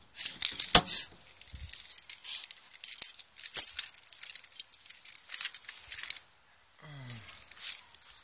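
Keys jangling, with sharp metal clicks and rattles (the loudest about a second in) as a pop-up camper's storage compartment door is shut and locked with its key latch. A brief voice near the end.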